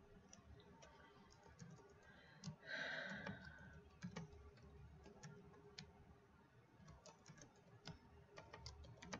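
Faint computer keyboard typing: scattered key clicks as a password is typed into a form field. A brief hiss about three seconds in is louder than the keystrokes.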